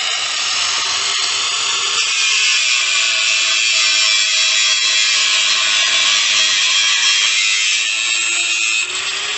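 Handheld angle grinder with a thin cutting disc running and cutting into the sheet-steel housing of a Royal Enfield Meteor 350's catalytic converter section: a steady, high-pitched grinding hiss over the motor's whine, which grows louder about two seconds in as the cut bites.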